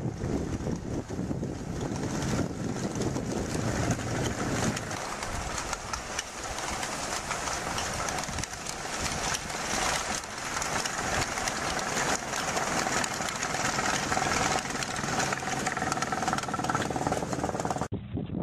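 Engine of a tracked snowcat running under load as it ploughs through deep snow, over a steady rushing hiss. A faint steady whine joins in about two-thirds of the way through.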